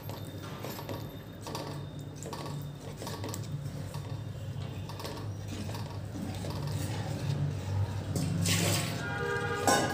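Steel spoon stirring thin besan (gram-flour) batter in a stainless steel pan: wet sloshing and scraping of the spoon against the pan, over a steady low hum. About eight and a half seconds in there is a brief louder rush of noise.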